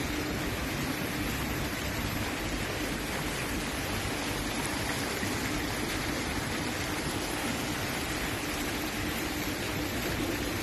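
Water from a fountain's small jets splashing steadily into its pool, with a faint steady hum underneath.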